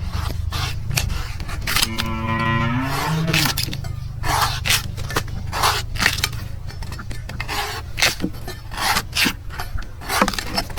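A knife chopping repeatedly into a coconut, with sharp cuts every half second or so. A cow moos once about two seconds in, a single call falling in pitch, over a steady low rumble.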